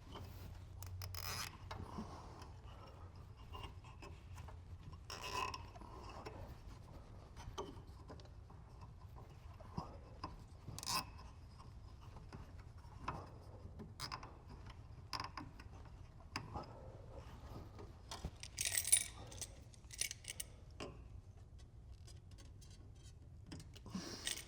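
Faint, scattered clicks and rubbing of wires and cart parts being handled, with a plastic cable tie ratcheted tight; a short rasp stands out about three quarters of the way through.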